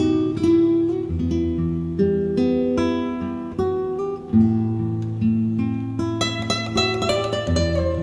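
Background music: guitar playing plucked notes and strummed chords, growing busier with quicker notes from about six seconds in.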